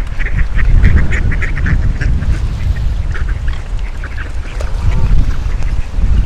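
Ducks quacking in quick, overlapping bursts, with strong wind buffeting the microphone as a constant low rumble.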